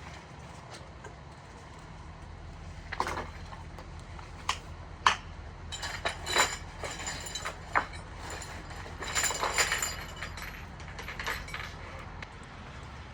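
Metal parts clinking and clanking as they are handled, a string of sharp knocks with a brief ringing, over a steady low hum.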